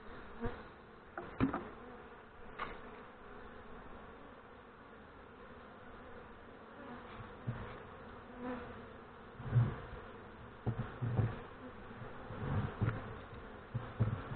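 A mass of honeybees buzzing steadily around a mini nuc box. A few sharp knocks come in the first three seconds, and soft low thumps come through the second half as the foam box is handled.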